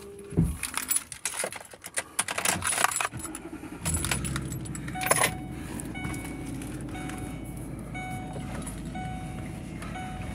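Keys jangling with clicks and rattles, then a car engine starts about three seconds in and idles steadily. There is a sharp knock about five seconds in and faint short beeps over the idle.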